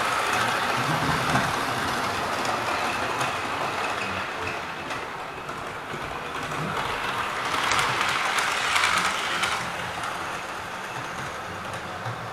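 Model diesel locomotive and coach running on model railway track: a steady whirring rumble with fine clicking of the wheels over the rail joints, growing loudest about eight seconds in as the train passes close, then fading away.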